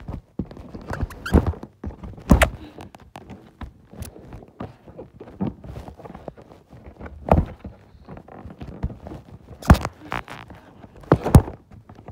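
Hands picking and tearing at a cardboard box sealed with duct tape: close, irregular scratching and crinkling, broken by several sharp knocks and thuds.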